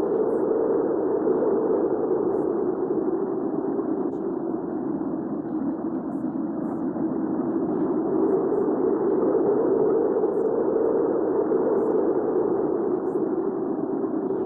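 Hurricane wind ambience: a low, steady rush of wind that swells and eases in slow waves, stronger near the start and again just past the middle.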